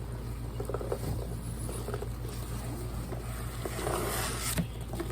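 Cardboard boxes and packing material being handled: scattered scraping and rustling as a box is pulled out of its shipping carton, with a louder rustle and a sharp knock near the end. A steady low hum runs underneath.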